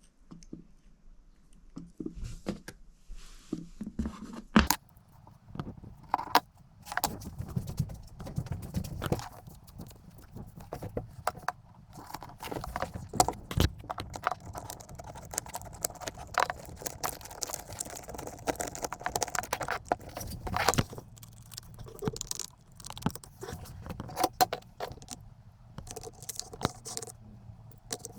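Irregular metallic clicks, clinks and light scrapes of small metal parts and tools being handled while the battery tacker is taken apart for repair.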